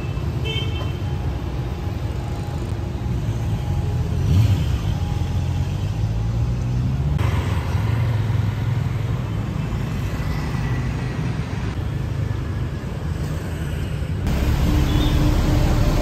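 Street traffic: scooters, motorbikes and cars running past, a steady low rumble that shifts abruptly a few times and grows louder near the end.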